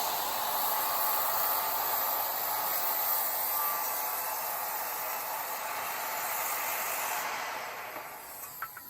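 Power saw cutting through the heel of a lumber stair stringer: a loud, steady, hiss-like noise that starts abruptly, holds for about seven seconds, then dies away near the end.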